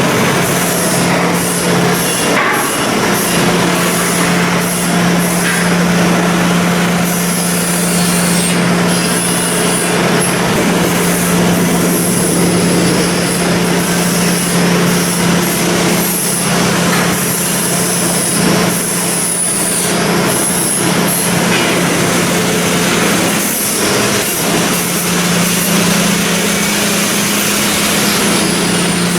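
Continuous shipbuilding work noise: a steady machine hum under a constant hiss, with frequent short knocks and clatters throughout.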